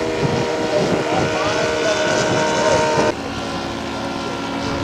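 Scale model airplane engine running in flight, a steady engine note over wind noise with some slight rises and falls in pitch; the sound changes abruptly about three seconds in.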